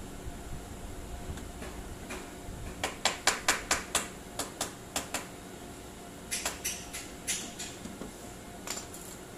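Claw hammer driving nails into pallet-wood boards: a run of about ten quick, sharp blows starting about three seconds in, then a few lighter, scattered taps later on.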